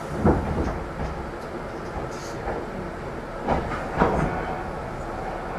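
Real train running on track: a steady rumble with wheels knocking over rail joints, once near the start and twice in quick succession a little past the middle.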